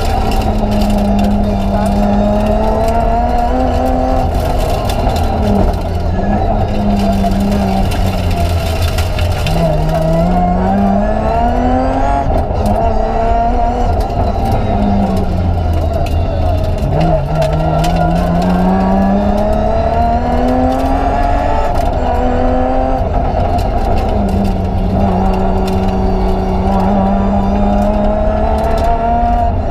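BMW 325 Group A rally car's straight-six engine heard from inside the cabin at full stage pace. The pitch climbs and drops again and again as the car accelerates, shifts gear and lifts for corners.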